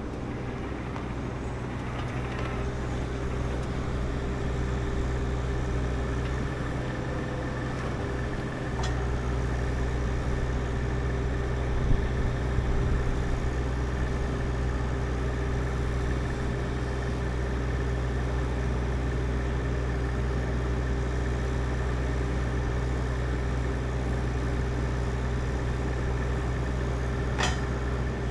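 An engine running steadily at a constant speed, with a brief louder knock about twelve seconds in and a short click near the end.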